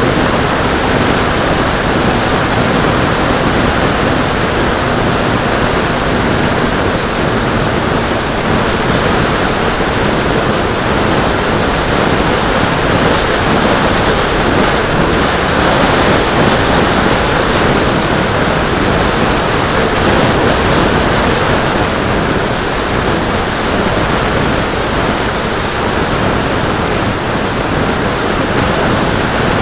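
Steady loud rush of airflow on the microphone of a wing-mounted camera on a Bixler 2 foam model plane in flight, with its brushless electric motor and 8x5 propeller running underneath.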